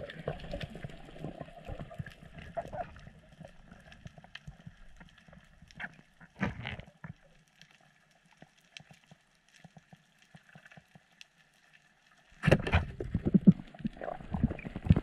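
Underwater sound picked up by a diving camera: faint, scattered clicks and crackles, with a brief louder rush about six seconds in. Near the end a louder jumble of knocks and low rumbling starts suddenly.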